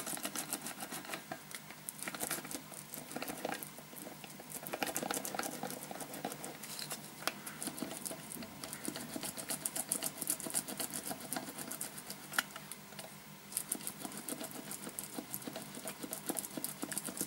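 Tyre-patch stitching roller run back and forth under pressure over a plug-patch on a motorcycle tyre's inner liner, a fast, faint clicking patter with a brief lull before the last few seconds. The stitching presses the patch home, pushing out air bubbles and gaps so it seals.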